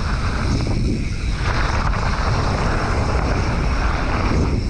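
Wind noise on an action camera's microphone as a mountain bike rolls down a dirt singletrack, over a steady low rumble of the tyres on the trail. The hiss grows fuller about a second and a half in.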